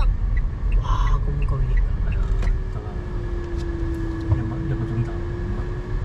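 Low rumble of a car's engine and tyres heard from inside the cabin, with a steady hum setting in about two seconds in.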